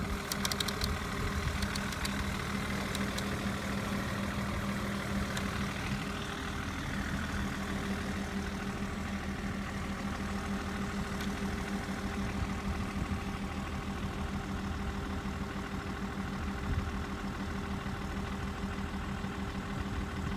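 A steady, unchanging engine idling drone, a low even hum.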